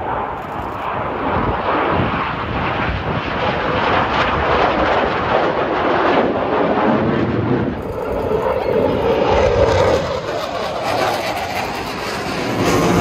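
Jet noise from Blue Angels F/A-18 Super Hornets flying overhead in a four-jet diamond formation, a loud steady rushing sound. About eight seconds in it changes abruptly to the sound of a separate pass by a single jet.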